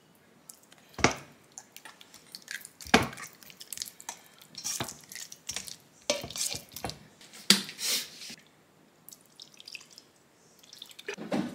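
Irregular knocks, taps and clatter of kitchen utensils and dishes being handled during food preparation. The sharpest knocks come about one and three seconds in, with a busier run of taps in the middle.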